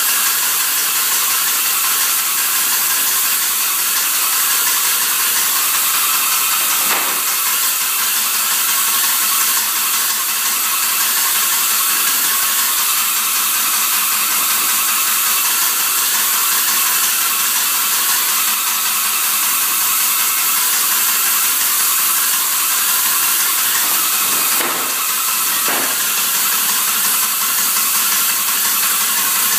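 A machine running steadily with a fast mechanical rattling buzz that holds the same level throughout.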